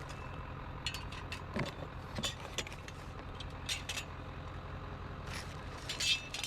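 A vehicle engine idles with a steady low rumble, while a metal object is handled and gives off scattered light clinks and rattles.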